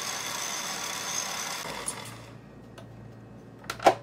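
Electric stand mixer's motor running steadily with a high whine as its whisk whips heavy cream in a stainless steel bowl, stopping about halfway through. A single sharp knock follows near the end.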